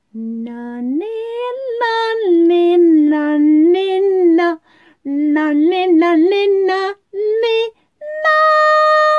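A woman singing a short unaccompanied tune in a few phrases, ending on one long held note.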